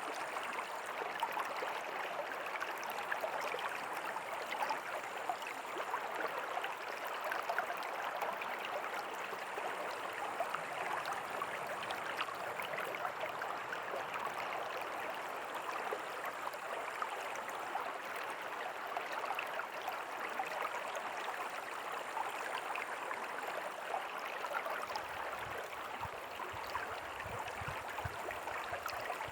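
Steady rush of a flowing river, even and unbroken throughout. A faint low rumble joins underneath near the end.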